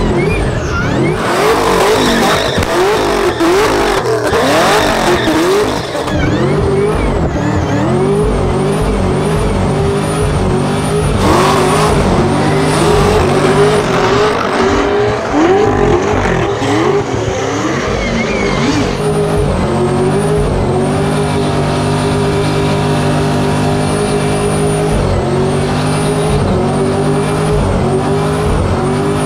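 A high-powered car engine revving hard during a burnout, its pitch rising and falling rapidly, with tyre squeal. From about two-thirds of the way through, the engine holds a steady high pitch.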